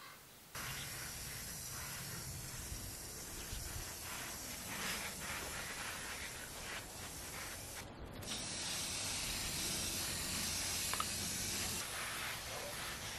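Garden hose spray nozzle hissing steadily as it waters the garden. It starts suddenly about half a second in and breaks off briefly about eight seconds in before going on.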